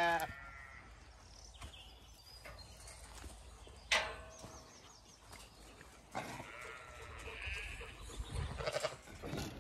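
Zwartbles ewes bleating: a loud bleat right at the start, then more bleats in the second half. A single sharp knock comes about four seconds in.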